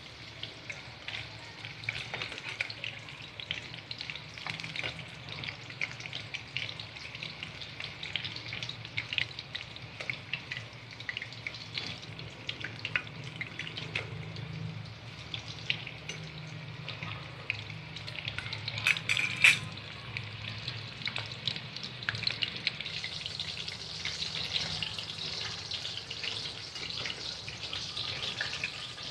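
Cornflour-coated chicken pieces deep-frying in hot oil in a kadai, crackling and sizzling steadily, while a metal slotted spatula stirs and turns them. A short cluster of loud knocks from the spatula against the pan comes about two-thirds through, and the crackle grows finer and brighter near the end.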